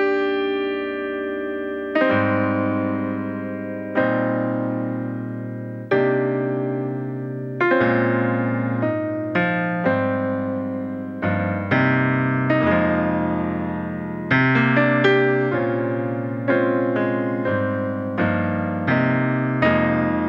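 Background music on solo piano: struck chords and single notes, each fading before the next, slow at first and coming more often after about eight seconds.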